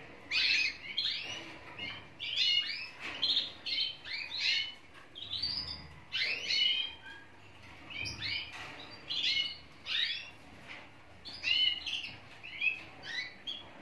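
Several domestic canaries chirping in their cages: many short, high calls from different birds, overlapping in quick runs.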